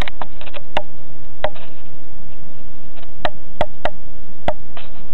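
A string of sharp cracks at irregular intervals, some close together: a giant panda biting and snapping bamboo as it eats.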